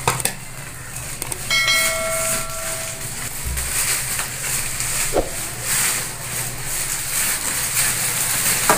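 Hot oil hissing and sizzling steadily in a kadai as batter-coated green chillies are readied for frying; near the end a battered chilli is dropped into the oil. A short steady whistle-like tone sounds for about a second and a half starting about a second and a half in.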